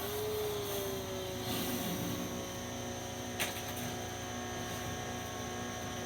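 Pressure washer running steadily, a continuous motor-and-pump drone with a steady hum, and one sharp click about three and a half seconds in.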